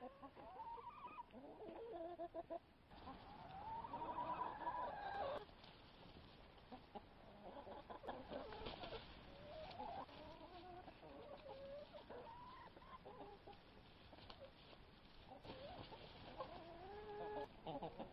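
A flock of hens clucking and making drawn-out, wavering calls, often several at once; the loudest call comes about four seconds in.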